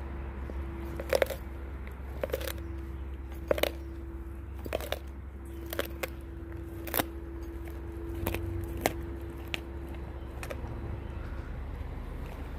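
A large Lycan Shepherd dog crunching through a whole frozen raw fish, with a sharp bite-and-crunch about once a second over a steady low hum.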